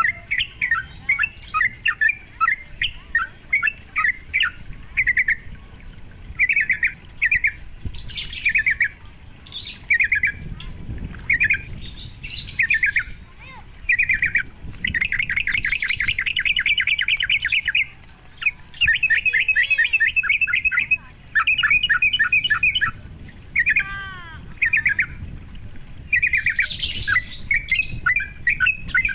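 Yellow-vented bulbul (trucukan) calling: short bubbly chattering phrases repeated over and over, with long, fast rattling trills past the middle. This is the kind of call played to provoke a caged trucukan into singing.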